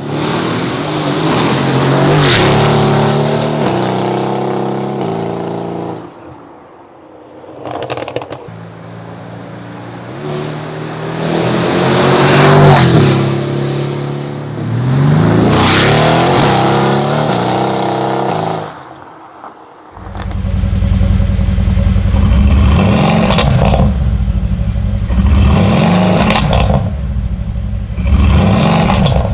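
Mercedes-AMG GT S twin-turbo 4.0-litre V8 revved through an iPE valvetronic turbo-back exhaust with cat-bypass pipes, the revs rising and falling in several sweeps. There is a brief crackle on a lift-off about eight seconds in. From about twenty seconds the sound turns deeper and heavier, with a run of short rev blips.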